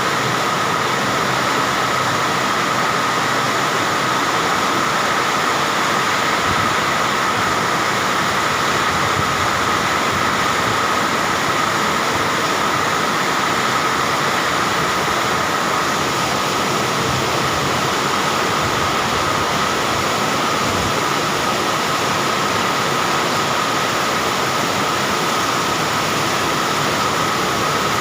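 Heavy rain pouring down in a storm with strong wind: a loud, steady rushing hiss.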